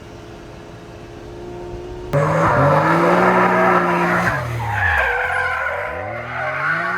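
Straight-piped Ferrari 458 Speciale V8 under way: a steady engine hum, then about two seconds in a sudden much louder exhaust note that revs up, holds high, drops off and revs up again with a raspy edge.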